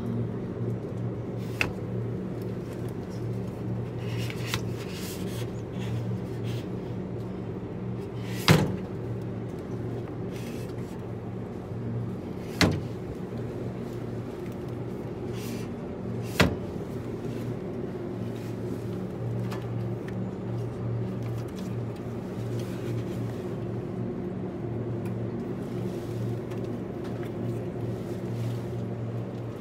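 A steady low machine hum with a few sharp knocks or clacks several seconds apart, the loudest about eight and a half seconds in.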